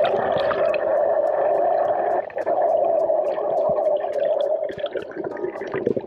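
Underwater sound heard through a diving camera's housing as a freediver swims over a reef: a steady, muffled rush of water that breaks off briefly about two seconds in, with faint scattered clicks throughout.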